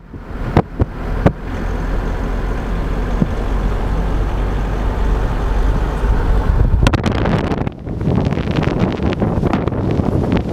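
Car driving, its steady low road and engine rumble heard from inside the cabin; from about seven seconds in, wind buffets the microphone in choppy gusts.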